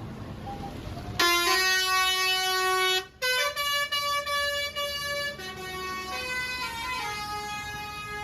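Basuri telolet multi-note bus horn playing a tune: a loud horn comes in about a second in and steps from note to note, breaks off for a moment, then carries on through more notes, quieter for the last few seconds.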